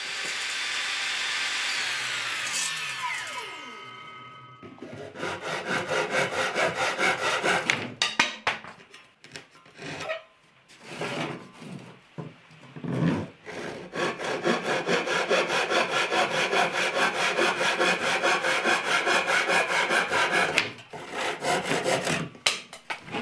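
Table saw blade spinning down after being switched off, its whine falling in pitch and fading over the first few seconds. Then a handsaw crosscutting thin wooden strips in runs of quick back-and-forth strokes, with short pauses between cuts.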